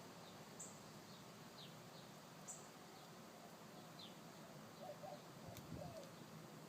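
Faint, high bird chirps: a few short notes spread through, some falling quickly in pitch. A single soft click about five and a half seconds in.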